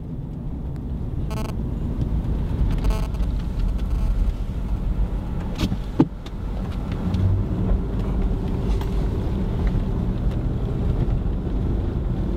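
Car driving, heard from inside the cabin: a steady engine and road rumble, with a few light clicks and one sharp click about six seconds in.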